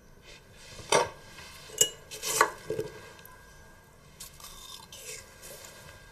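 Metal fork clinking against a dish as pieces of fruit are speared: three or four sharp clinks in the first three seconds, the loudest about two seconds in, then fainter handling sounds.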